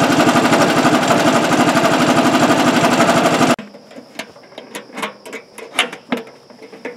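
Homemade bandsaw sawmill running, its 13 HP engine and band blade going with a rapid, even rhythm; the sound cuts off abruptly about three and a half seconds in. Quieter light clicks and knocks follow over a faint steady high whine.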